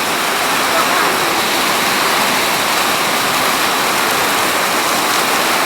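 Heavy rain pouring down in a strong windstorm: a loud, steady hiss.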